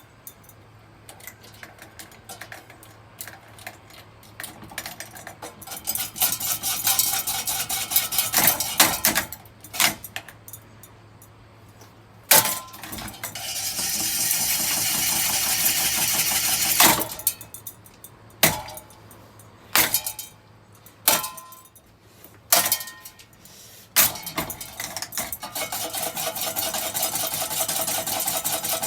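A battered ceiling fan running over a low steady hum, its broken parts rattling and scraping in long loud stretches, with a dozen or so sharp metal clanks in between.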